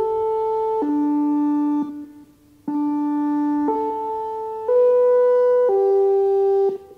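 ATI HPSS-32R electronic speaker siren playing its chime tones: a melody of sustained notes, each about a second long, in two phrases of four notes with a short pause between them.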